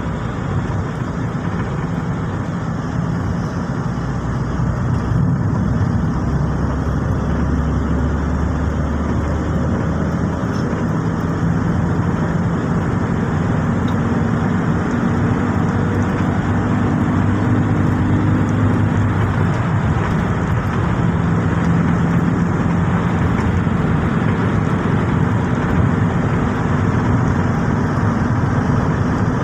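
Steady road noise inside a moving car's cabin: tyres on the road and the engine's low drone, growing slightly louder over the first few seconds.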